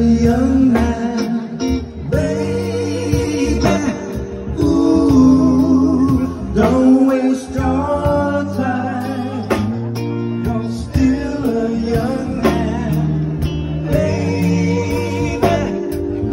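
Live funk band playing, with a man singing lead over electric guitar, bass and drums.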